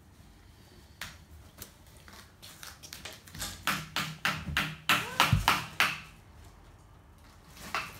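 A toddler making a quick run of sharp taps and slaps, about three a second, that builds to its loudest in the middle. A dull thump comes about five seconds in.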